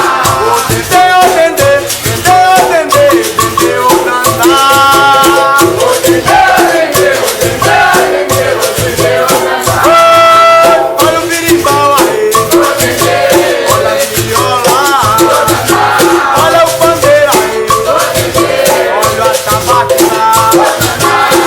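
Capoeira music: berimbau with its caxixi shaker rattling steadily, percussion and sung voices.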